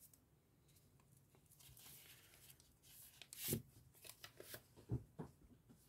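Faint handling noises at a tabletop: light rustling and scattered small taps, with two slightly louder soft knocks about three and a half and five seconds in.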